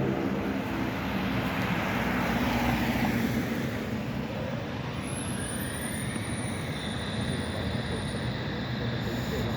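ZET tram running along the street track, with a steady rumble and an electric drive whine that slides in pitch a couple of times.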